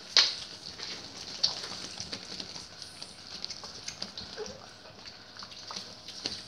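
Dogs snuffling and shifting about, with many small clicks and ticks. A sharp knock comes about a quarter of a second in.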